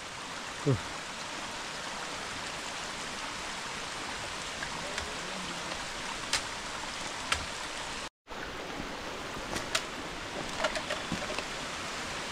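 Steady rushing of water, with scattered light ticks; it cuts out for an instant about eight seconds in.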